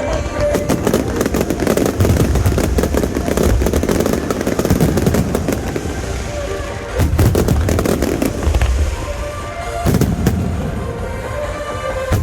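Finale fireworks display: a dense run of crackling bursts and deep booms, with heavier clusters of booms about seven and ten seconds in, over background music.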